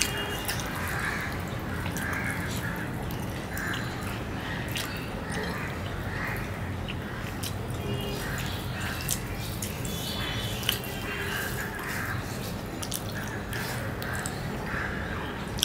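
Eating by hand: small wet clicks and squelches of fingers mixing rice with curry and of mouths chewing, scattered irregularly over a steady low background rumble.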